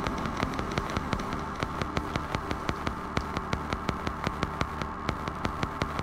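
Electronic soundtrack music: a steady drone with a fast, even ticking pulse of about five clicks a second.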